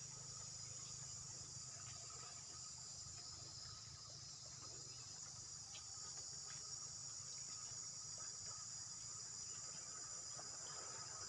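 Faint, steady chorus of insects singing, a continuous high-pitched buzz with no break, over a low rumble and a few faint clicks.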